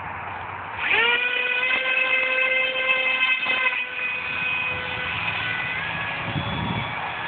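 Brushless electric motor and propeller of a small RC plane spinning up: a high whine that climbs sharply about a second in and then holds steady, easing back and dropping a little in pitch after the middle.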